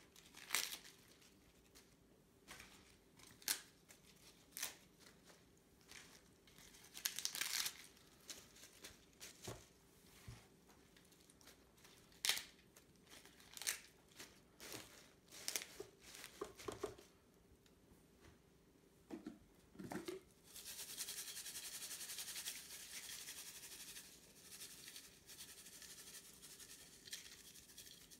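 Fresh escarole leaves rustling and crinkling as they are handled and pressed into a metal baking dish, with many short crackles. About twenty seconds in comes a steady hiss that lasts a few seconds.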